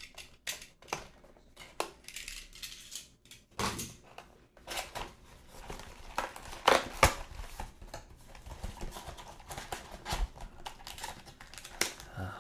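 Cardboard trading-card hobby box and its packaging being opened and handled: irregular rustling, crinkling and light taps and clicks, with a few sharper knocks around the middle.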